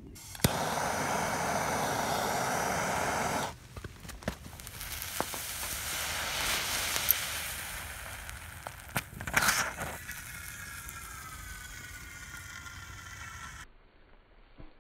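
Thermite burning in a small engine's cylinder, hissing and crackling as it throws sparks, with scattered sharp pops. A loud steady hiss in the first few seconds gives way to a fizzing that swells and fades, with one louder burst, before the sound drops away suddenly near the end.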